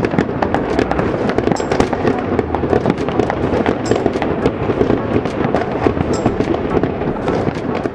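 Fireworks going off thick and fast: many overlapping bangs and crackles in an unbroken run.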